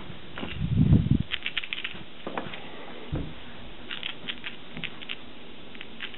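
A Savannah kitten's paws thumping and claws clicking on a laminate floor as it scampers: a heavy thumping spell about a second in, then two runs of quick clicks.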